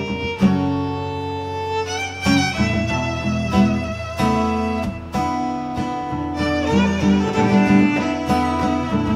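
A live string trio playing: a violin carries the melody in bowed notes over acoustic guitar and cello accompaniment.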